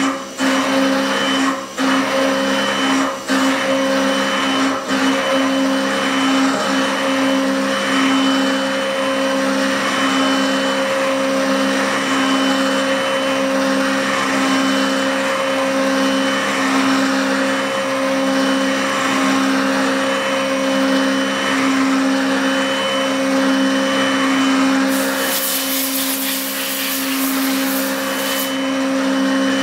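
HAAS TM-1 CNC mill spindle and end mill cutting aluminum under flood coolant: a steady machining hum with a constant tone and a spray of noise. There are a few brief dips in the first five seconds, and a high hiss comes in for about three seconds near the end.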